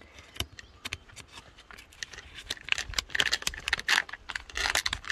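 Plastic food pouch of oatmeal crinkling and rustling as it is handled with a spoon: a run of small sharp clicks and crackles, getting busier about halfway through.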